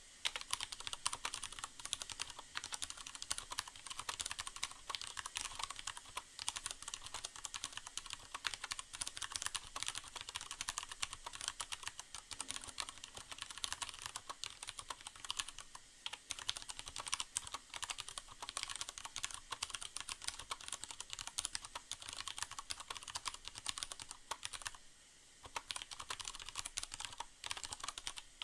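Steady typing on a Leopold FC750R mechanical keyboard with Cherry MX Brown switches: dense, fast key clacks, with a brief pause near the end, over a faint steady hiss of rain.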